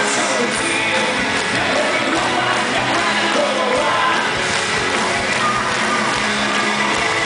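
Live rock band playing loud with singing, heard from among the audience, with the crowd clapping along overhead.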